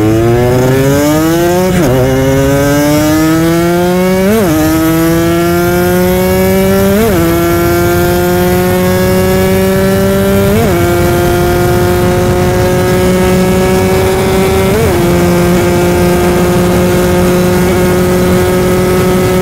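Two-stroke Kawasaki Ninja RR 150 engine accelerating hard up through the gears. The pitch climbs in each gear and drops briefly at each of five upshifts, then holds a nearly steady high note in top gear. Wind rushes over the microphone.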